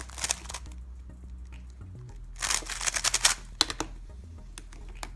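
A 3x3 speedcube being turned fast by hand, its layers clicking in two quick bursts of turns, the second about two and a half seconds in, followed by a few single clicks.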